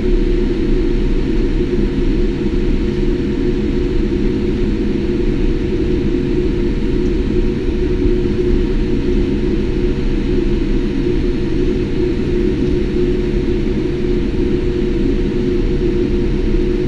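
Steady low cabin rumble of a Boeing 787 taxiing on the ground, heard from inside the cabin: engines at idle and the airframe rolling along the taxiway.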